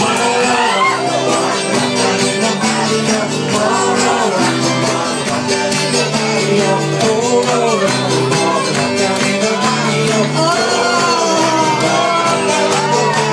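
Live folk music in a pub: strummed chords with a steady beat under a melody line, with a voice singing.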